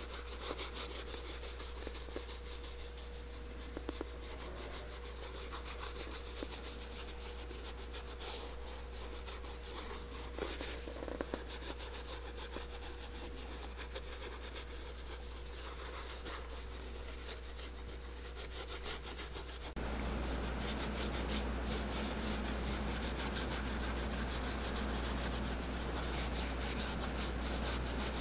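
Wool dauber scrubbing leather dye onto the leather of a vintage Dr. Martens boot: fast, continuous rubbing and swabbing strokes. About two-thirds of the way in, the background hum underneath gets louder.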